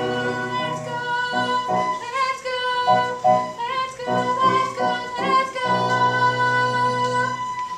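Live musical-theatre singing over instrumental accompaniment, ending on a long held note.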